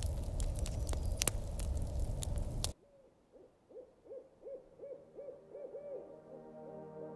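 Wood fire crackling with sharp pops, cut off abruptly a little under three seconds in. An owl then hoots in a series of short notes that come faster and faster, and soft ambient music fades in near the end.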